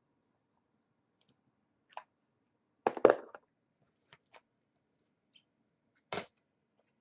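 Hands handling trading cards and their packaging: a few short taps and clicks. The loudest cluster comes about three seconds in and another sharp one near the end.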